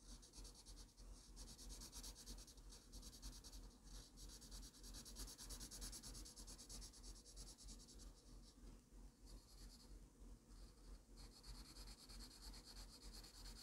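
Faint scratching of a pencil on drawing paper, shading in quick, repeated strokes.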